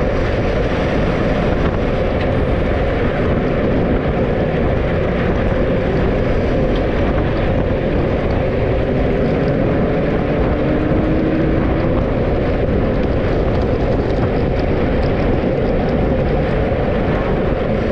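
Steady rush of a moving vehicle: engine noise mixed with wind on the move, with a faint engine note that rises a little about halfway through.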